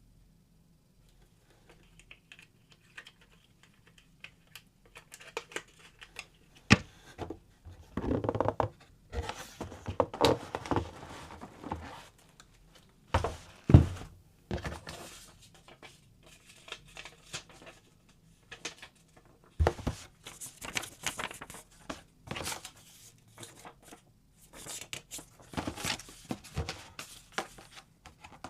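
Packaging being handled: plastic and paper tearing and crinkling in irregular rustling bursts, with scattered sharp clicks and knocks, loudest around the middle.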